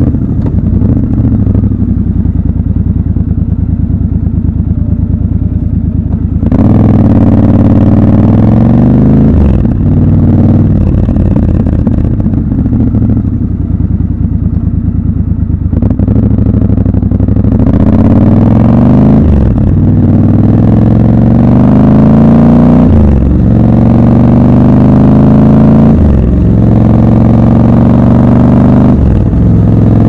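Triumph Scrambler 1200 XC's 1200 cc parallel-twin engine, heard from the rider's seat. It runs low and steady at first, then about six seconds in pulls away with a rising note. In the second half it accelerates hard up through the gears, the pitch climbing and then dropping sharply at each of several upshifts.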